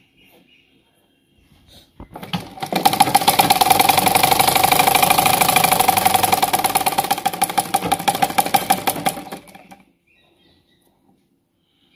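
Sewing machine running through one continuous stitching run: it starts about two seconds in, picks up to a fast, even stitching rhythm, then slows and stops near the end.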